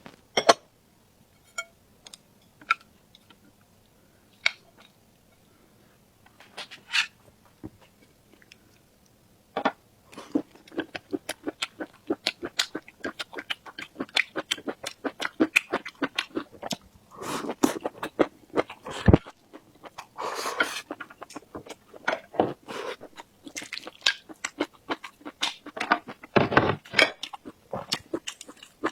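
Close-miked eating: a few scattered mouth clicks in the first ten seconds, then continuous rapid chewing with crunches.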